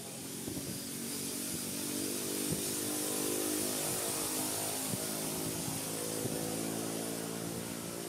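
A small engine running steadily, getting a little louder toward the middle and easing off near the end.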